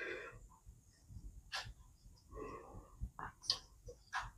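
A few faint, sharp metal clicks and taps as a Blue Point valve spring compressor is worked on a BMW R80 cylinder head to release the valve springs, with soft breathing near the start and around the middle.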